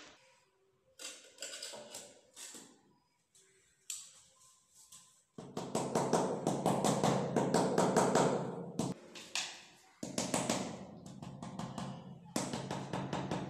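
Rubber mallet tapping a ceramic floor tile down into its mortar bed, bedding it level. A few separate taps come first, then long runs of fast taps, broken by a short pause about nine seconds in.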